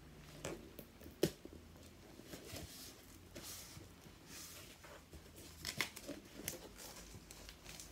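Parcel packaging being opened and handled by hand: scattered rustling and tearing with sharp clicks, the loudest about a second in and a cluster near six seconds in.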